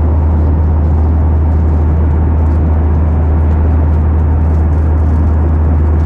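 Steady cabin noise of an airliner in flight: a loud, even low hum with a hiss over it.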